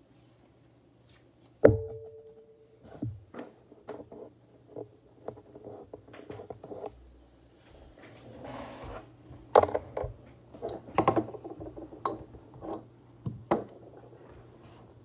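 Scattered knocks and clicks, with one sharp knock about two seconds in that rings briefly at a steady pitch, a soft hiss a little past the middle, and a quick cluster of clicks after it.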